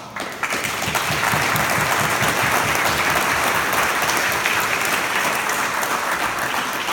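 Audience applauding, building up within the first half second, then steady clapping that eases slightly near the end.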